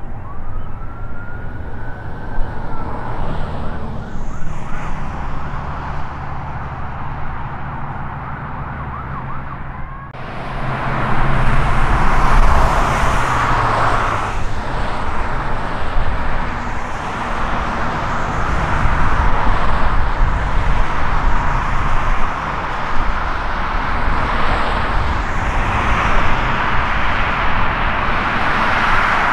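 Jet engine of a NASA ER-2 running on the runway, with a steady low rumble and hiss. About ten seconds in, the jet noise jumps sharply louder as the engine is powered up, and it stays loud. A short rising-and-falling whine sounds near the start.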